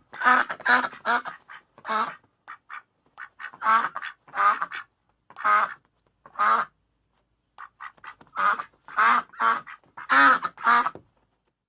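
Duck quacking repeatedly in uneven runs of loud, harsh quacks, with a few softer, shorter quacks between the runs.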